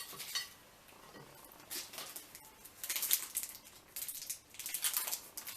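Chocolate-bar wrappers rustling and crinkling as they are handled, in four or five short bursts.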